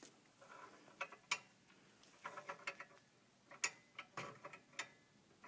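Triple beam balance's tens rider being slid along its notched metal beam, clicking into one notch after another: a series of faint, uneven clicks, several close together near the middle.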